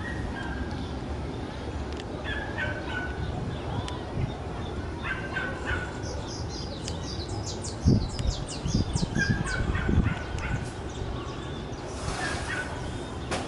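Birds chirping and calling in short, repeated notes, with a rapid run of high chirps in the middle, over the low rumble of wind gusts buffeting the microphone as a storm front moves in.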